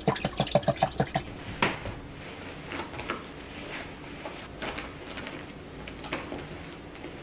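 Scattered soft knocks and rustles of someone moving about a room and handling things, following a brief, loud run of rapid sound in the first second.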